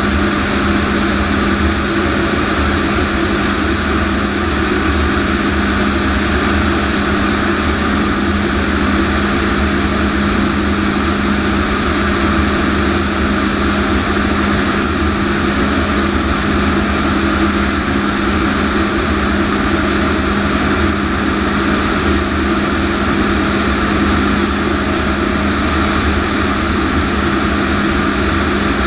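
Jet engine and rushing airflow of a T-33 jet trainer in flight, heard inside the cockpit as a loud, steady noise with a constant low hum underneath.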